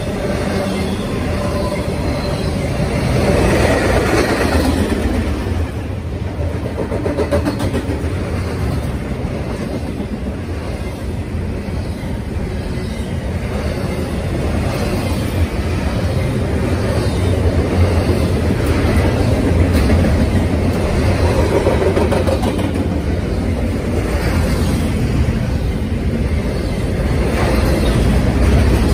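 Norfolk Southern double-stack intermodal freight train rolling past: steady noise of steel wheels on the rails as loaded well cars go by, heaviest in the low end, swelling briefly about three seconds in and growing a little louder in the last ten seconds.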